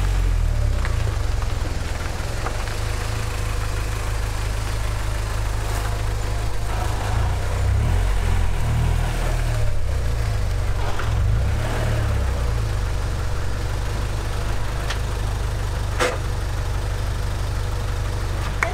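Honda Integra DC2 engine idling at low revs while the car creeps into a parking spot, the engine note shifting briefly around the middle. A single sharp click comes near the end.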